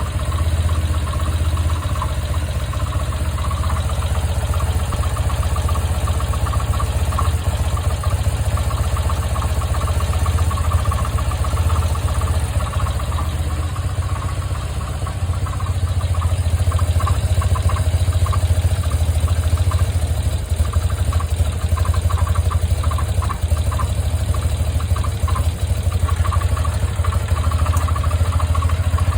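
1980 BMW R100RT's air-cooled flat-twin engine idling steadily, with a fast metallic ticking over the engine note: the unexplained noise the owner is trying to trace.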